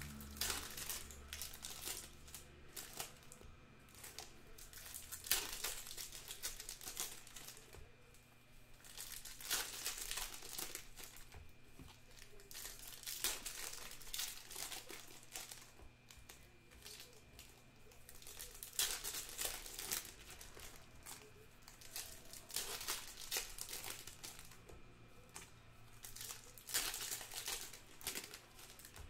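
Shiny trading-card pack wrappers crinkling and tearing in irregular bursts as 2021 Topps Stadium Club baseball packs are ripped open by hand.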